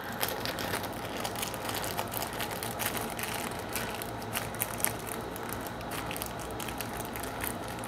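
A small clear plastic packet crinkling and rustling as fingers work it open, with many small crackles and clicks throughout.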